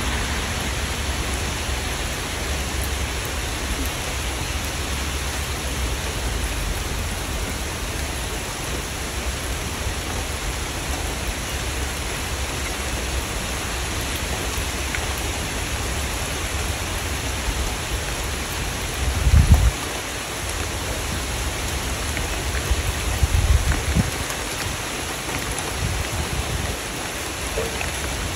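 Steady rain falling, an even hiss of drops. About two-thirds of the way through, and again a few seconds later, there are brief low rumbles beneath it.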